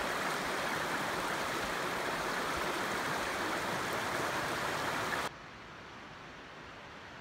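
Fast, shallow mountain river rushing over stones, a loud steady rushing. About five seconds in it cuts off suddenly to a much quieter steady hiss.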